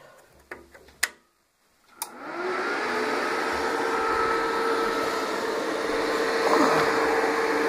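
Two sharp clicks of switching on. About two seconds in, the cooling fan of an Avangard RDS-280 welding inverter starts, its hum rising in pitch as it spins up, then runs steadily with an even whoosh. This is the repaired welder powering up normally.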